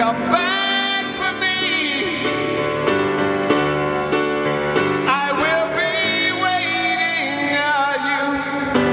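Live male vocal with piano accompaniment: long sung notes that slide and bend in pitch over steady piano chords.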